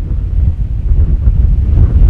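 Airbus A350's Rolls-Royce Trent XWB turbofans running at takeoff power during the takeoff roll: a loud, deep, rough rumble with no clear pitch, swelling slightly near the end.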